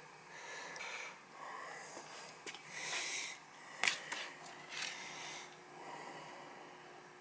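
Faint breathing close to the microphone, a few soft breaths about a second apart, with one sharp click near the middle.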